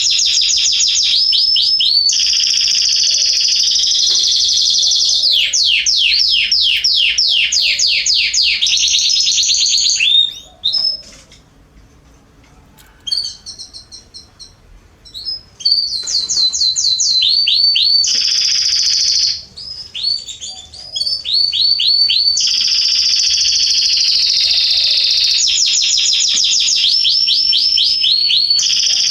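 Domestic canary song: long, loud phrases of fast repeated sweeping notes and rolling trills. The song breaks off for a few seconds about ten seconds in, and briefly again about twenty seconds in.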